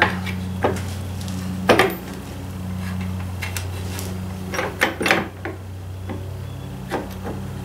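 Metal clinks and clanks of drum brake shoes and springs being worked against a Ford 2N's steel brake backing plate by hand, a few sharp knocks, the loudest a couple of seconds in and another cluster about five seconds in.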